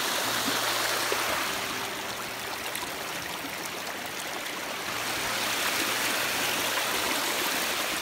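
Muddy snowmelt and rainwater rushing steadily down a channel dug through the snow and mud of a dirt road.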